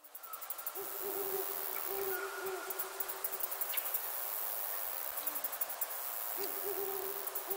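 A bird hooting, a low series of soft hoots heard twice, over a steady hiss.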